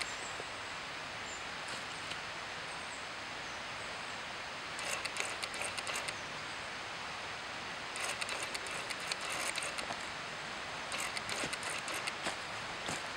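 Steady rushing of the Daisen Falls waterfall. Three times over it comes a spell of rapid crackling ticks lasting a second or two.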